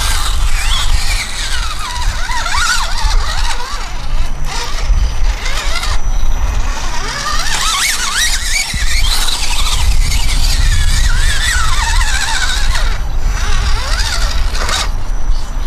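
Electric RC rock crawler's motor and gear train whining, the pitch wavering up and down as the throttle changes while it crawls over rock, over a steady low rumble.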